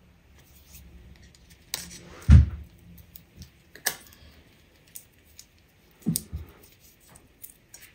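Scattered clicks and soft knocks of craft supplies being handled on a work table, with one heavier thump about two seconds in and a double knock about six seconds in.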